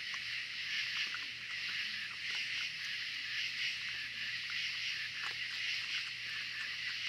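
Young raccoons eating at a feeding table, with small soft clicks and smacks of chewing now and then, under a steady high buzzing chorus of night insects that is the loudest sound.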